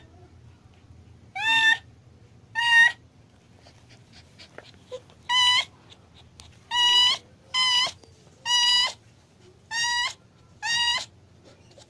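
Mother cat in labour crying out with short, high meows, eight of them spread over about ten seconds, while a kitten is being pushed out.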